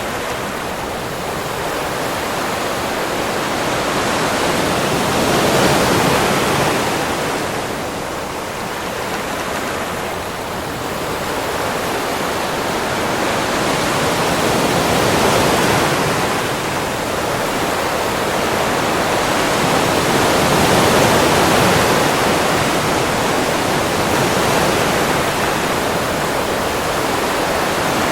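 Ocean surf on a beach: a continuous rush of breaking waves that swells louder and eases off again every several seconds.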